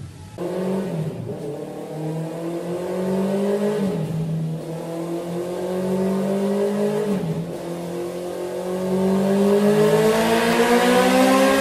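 Honda CB650R inline-four with a Mivv MK3 exhaust, accelerating: the revs climb steadily, drop sharply twice, about four and about seven seconds in, as it shifts up, and the engine gets louder near the end.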